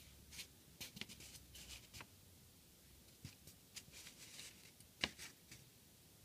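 Faint rustling and light ticks of paper sheets being handled, with one sharper tap about five seconds in.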